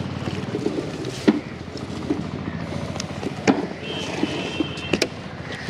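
Town street noise: a steady hum of traffic with scattered knocks and clicks, and a steady high-pitched tone for about a second near the end.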